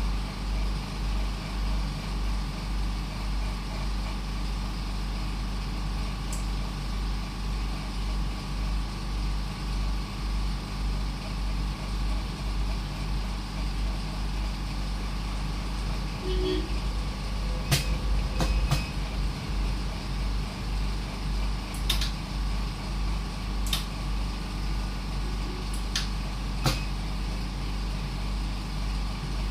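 Steady low rumble of a running vehicle, with a few brief sharp clicks or knocks in the second half.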